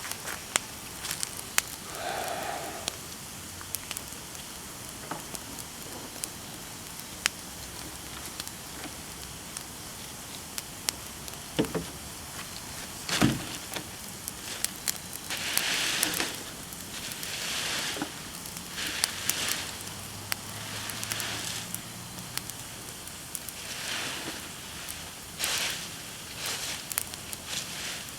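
Persimmon-wood bonfire burning, with frequent sharp pops and snaps over a steady crackle. There is one louder snap about halfway through, and a few brief louder rushes of hiss later on.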